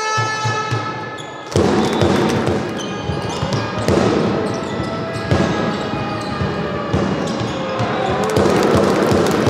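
Basketball game sound in a sports hall: the ball bouncing on the court amid hall noise and voices. Music plays over the start and cuts off abruptly about a second and a half in.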